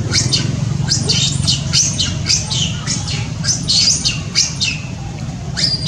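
Young long-tailed macaque screaming: a rapid run of short, high-pitched squeals that each fall in pitch, about two a second.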